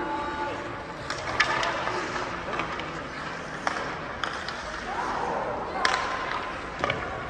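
Ice hockey practice on the rink: skates scraping the ice, sharp clacks of sticks hitting the puck about six times, and players shouting to each other, echoing in a large, empty arena.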